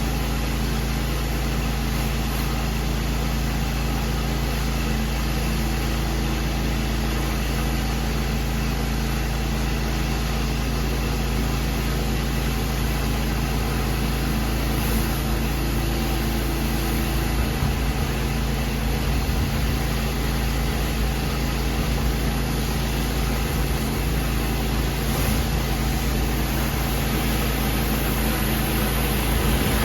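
Pressure washer running steadily: a constant engine hum under an even hiss.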